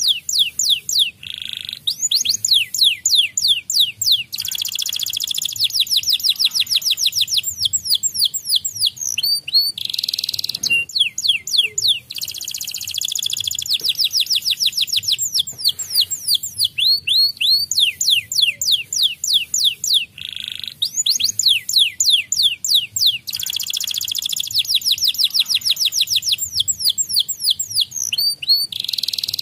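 White domestic canary singing: long, high-pitched phrases of fast trills and rapidly repeated chirping notes, broken by short pauses every few seconds.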